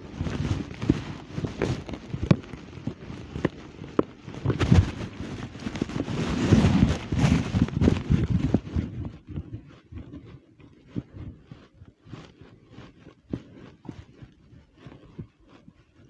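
Handling noise from a phone being moved and carried: rubbing, rustling and knocking on the microphone, with what sounds like footsteps, dense for about nine seconds and then thinning to scattered light taps.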